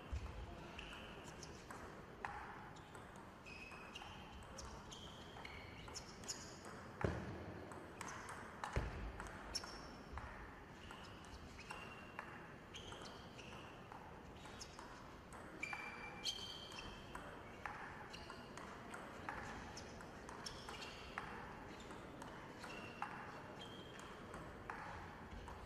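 Table tennis ball in a long rally: sharp clicks of the ball off the rackets and the table, each with a brief high ping, coming every half second to a second.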